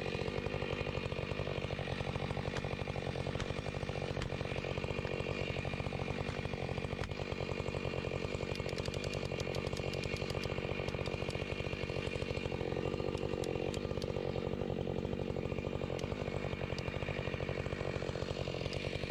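Husqvarna 592 XPG two-stroke chainsaw idling steadily, with scattered clicks from a felling jack being worked in the back cut.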